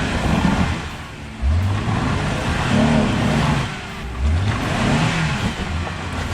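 Off-road Jeep's engine revving up and easing off in repeated surges, two sharp ones about a second and a half and four seconds in. The engine is under load as the driver bumps it hard against a trail obstacle without getting over.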